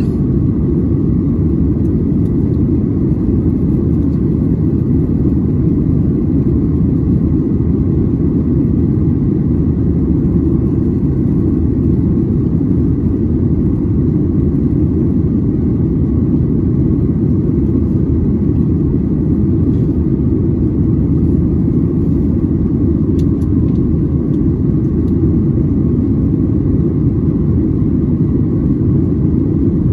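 Cabin noise inside a Boeing 737-800 in flight: a steady low roar from its CFM56-7B turbofan engines and the air rushing past the fuselage, holding constant throughout.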